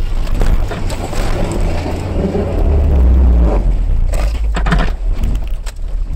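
Frontera 4x4's engine labouring under load on a steep dirt climb, its drone swelling loudest about halfway, with tyres scrabbling on the ground. A few sharp knocks and rattles from the vehicle come about four and a half seconds in. It does not have the power to crest the bank.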